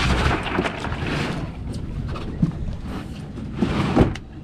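Wind buffeting the microphone over the low rumble and wash of a fishing boat at sea, with a sharp knock about four seconds in.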